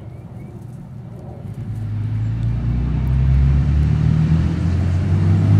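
A motor vehicle's engine running with a steady low hum, getting louder from about a second and a half in and then holding steady.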